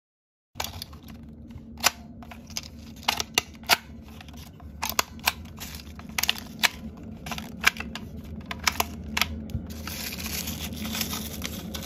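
Long fingernails clicking and tapping on the hard plastic of a toy capsule's hinged compartment doors, a string of sharp separate clicks. Near the end it turns into a steady crinkling of a foil wrapper being pulled from the bottom compartment.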